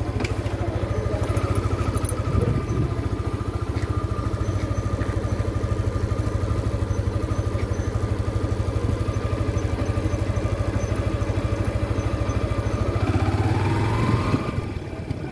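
Small vehicle engine running steadily with a fast, even beat. Near the end a rising whine comes in, then the engine sound eases off slightly.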